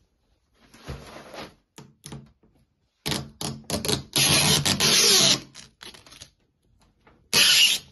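Clear plastic protective cover being handled and pulled off the bottom edge of a flat-screen TV, crinkling and crackling. There are quieter rustles about a second in, a long loud stretch about four to five seconds in, and a short loud burst near the end.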